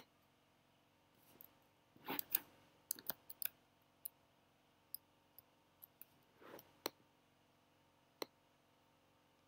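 Faint, scattered clicks of a computer keyboard and mouse during code editing: about a dozen irregular taps, with a short cluster about two seconds in.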